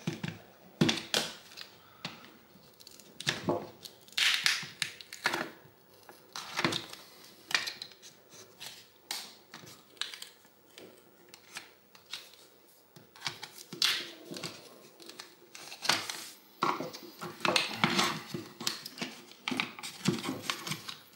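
A screwdriver prying a lithium battery pack out of a jump starter's plastic case, with scattered clicks and scrapes of metal and plastic at irregular intervals.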